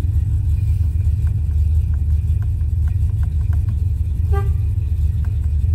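Steady low rumble, with a run of light clicks in the middle as dashboard switches on the Rover 3500 police car are tried one after another, and a brief faint tone about four seconds in.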